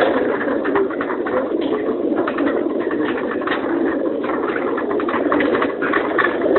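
A crowded load of racing pigeons cooing together in the stacked metal crates of a pigeon transport truck, a dense, continuous mass of coos with many short clicks scattered through it.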